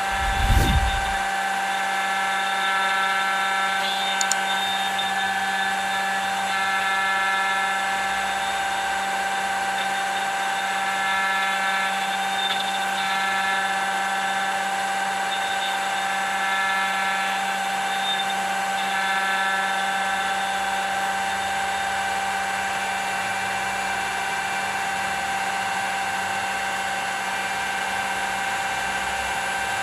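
Router motor on a homemade manual copier running steadily at high speed, its small engraving bit cutting a groove in a wooden board. A low thump comes about half a second in.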